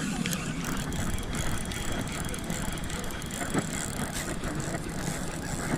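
Fishing reel being cranked in against a heavy fish, a fast run of small ticks over steady background noise.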